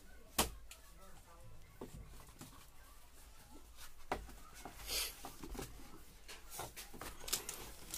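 Quiet small-room sound: faint talk and scattered clicks and knocks as sandals are handled and taken off wooden shelves, with one sharp click right at the start and a brief hiss about five seconds in.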